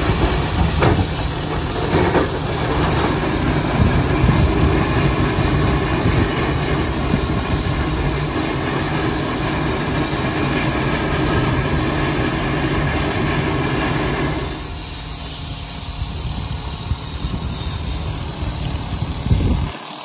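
Bucyrus-Erie 50-B steam shovel working, its steam engine running with a loud hiss of escaping steam; the hiss drops away about three-quarters of the way through, leaving the lower machinery noise, with a few short knocks.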